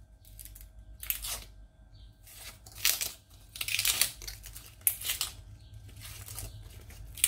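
Dry, papery onion skin crackling and tearing as it is peeled off by hand, in several short rustling bursts.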